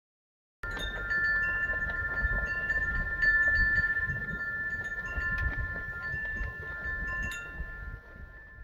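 Wind chimes ringing in a breeze: several overlapping sustained tones with repeated light strikes, over low wind rumble on the microphone. It starts abruptly just after the beginning and fades near the end.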